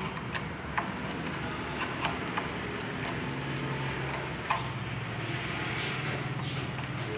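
Scattered light metallic clicks and taps from small parts and a tool being handled while the diaphragm housing is fitted to a VE distributor diesel injection pump, with one sharper click about halfway through, over a steady low hum.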